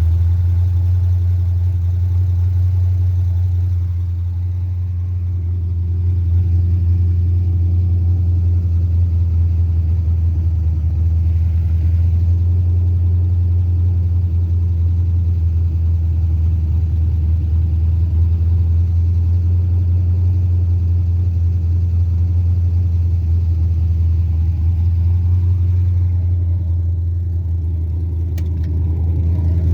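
Carbureted 5.3 L LS V8 running steadily, dipping slightly in level about four seconds in and again near the end.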